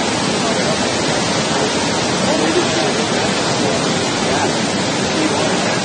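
Whitewater rapids rushing steadily, a loud, even wash of water noise.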